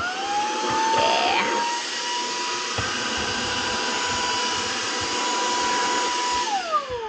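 Cordless handheld vacuum running: a steady motor whine over rushing airflow, which winds down with a falling whine as it is switched off near the end.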